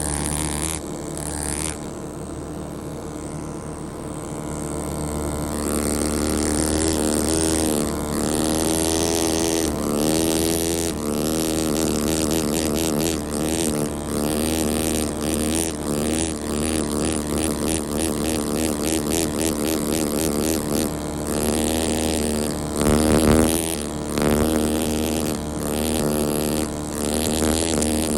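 Pneumatic air scribe buzzing and chattering against stone as it chips rock matrix away from an ammonite. Its pitch wavers, over a steady low hum. It is quieter for the first few seconds and louder from about six seconds in.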